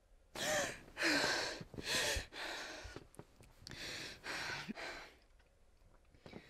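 A girl waking from a nightmare with a series of sharp, breathy gasps with a slight catch in the voice, followed by heavy panting that slows and fades away.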